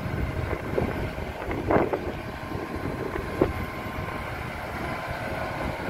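Concrete pump truck's diesel engine running steadily, with wind buffeting the microphone.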